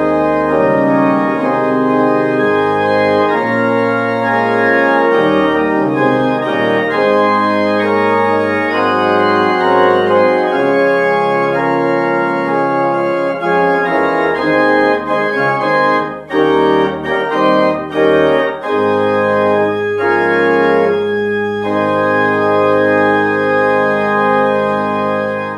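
Organ music closing the worship service: sustained chords over a moving bass, with a few short, separated chords about two-thirds through, ending on a long held chord that stops abruptly.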